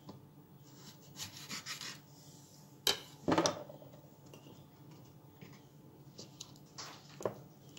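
Kitchen knife cutting green tomatoes on a wooden cutting board, with faint scraping strokes, then two sharp knocks about three seconds in. Lighter taps follow as the tomato slices are packed into a glass jar.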